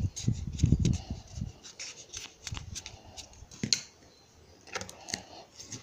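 Hands handling and pressing strips of EVA foam: irregular rustling and rubbing, with dull low knocks during the first second and a half and scattered sharp clicks, the sharpest a little past halfway.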